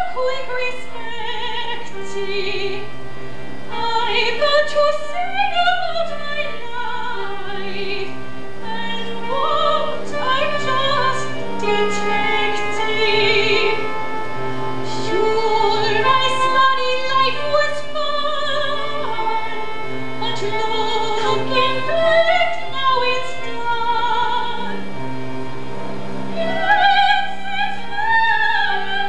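Operatic singing with vibrato over a musical accompaniment of held low notes that repeat about once a second, from a live stage opera performance.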